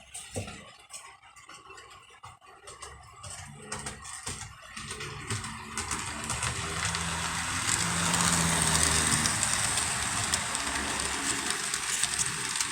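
HO scale model train running on the track: motor whir and wheel noise that swells about five seconds in and then holds steady, with scattered clicks before it.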